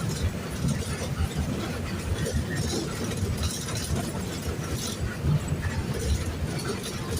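Mercedes-Benz OF-1519 BlueTec 5 bus's four-cylinder diesel engine running, a steady low rumble heard from inside the bus, with some light rattling.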